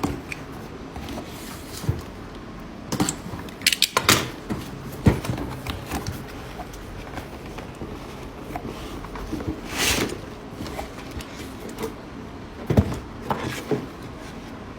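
Cardboard packaging being handled, with scattered knocks and taps of the box and a short scraping rustle about ten seconds in.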